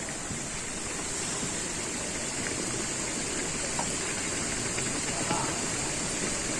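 Steady hiss of water, like rain or running water, with a constant high hiss above it and faint distant voices.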